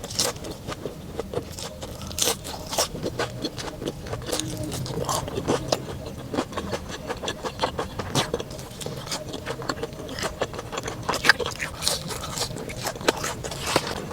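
Close-miked eating sounds: irregular sharp clicks and crunches of food being bitten and chewed.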